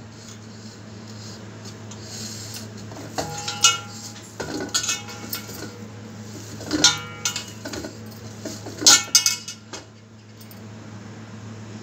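A stainless steel plate clinking and knocking as hands press and shape a log of biscuit dough in it. The clinks come in four short clusters with a brief metallic ring, the loudest about nine seconds in, over a steady low hum.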